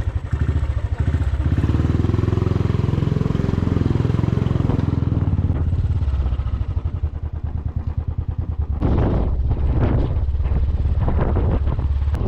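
Motorcycle engine running at low speed over a rough dirt track, its pitch wavering up and down a couple of seconds in. From about nine seconds in, rattles and knocks join the engine as the bike jolts over rough ground.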